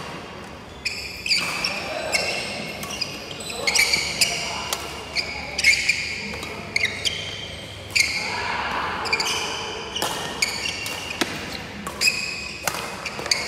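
Badminton rally: rackets striking the shuttlecock in sharp cracks, with many short, high squeaks from the players' court shoes on the wooden floor.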